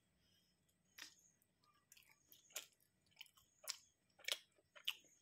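A person chewing a mouthful of soft sausage-and-cheese burrito: faint wet mouth clicks and smacks, sparse at first and then about every half second.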